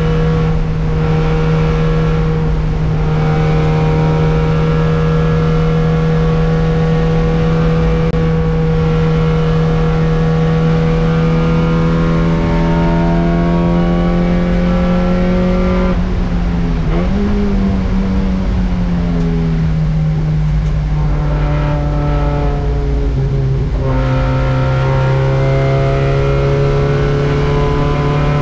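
Mazda Miata race car's four-cylinder engine running hard under load, heard from inside the cabin: the revs climb slowly for a long stretch, blip briefly a little over halfway, then settle lower and drop again near the end, over a steady rush of road noise.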